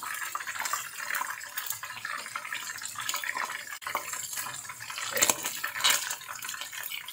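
Chunks of marinated tuna deep-frying in hot oil in a wok: a steady sizzle full of small crackles. The crackling gets louder around five to six seconds in, as metal tongs stir and lift the pieces.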